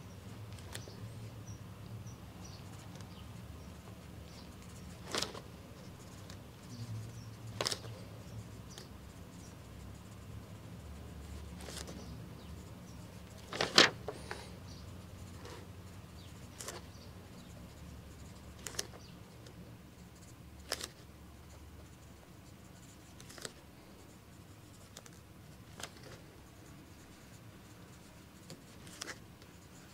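A pen writing notes on paper at a desk: scattered short taps and clicks, about one every two or three seconds, the loudest about 14 seconds in, over a faint low room hum.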